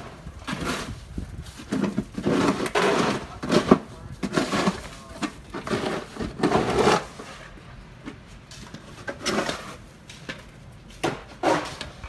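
Snow shovels scraping over a concrete sidewalk and scooping soft snow in a series of irregular strokes, heavier in the first half.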